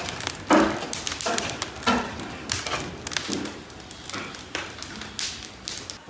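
Long-handled metal skimmers scraping and knocking against big cast-iron cauldrons of pilaf as the rice is stirred: an irregular clatter, about one knock a second.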